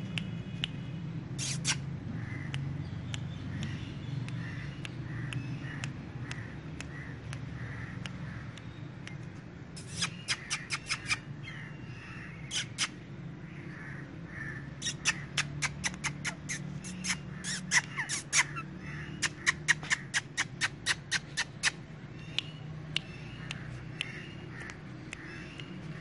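Indian ringneck parakeet calling in quick runs of short, sharp squawks: a brief run about ten seconds in and a longer one from about fifteen to twenty-one seconds in, with scattered single calls between.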